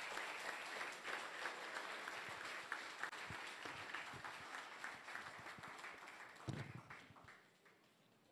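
Audience of seated students applauding, a dense patter of many hands clapping that dies away about seven seconds in, with a brief low bump just before it ends.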